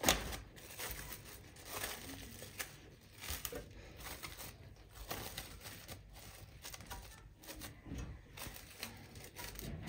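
Plastic cling film crinkling faintly in small irregular crackles as a hand presses and smooths it down onto a thick cream in a glass dish.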